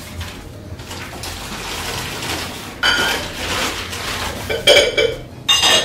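Wrapping crinkling as glassware is unwrapped, then glass bowls clinking against each other, once about three seconds in and twice near the end, each clink ringing briefly.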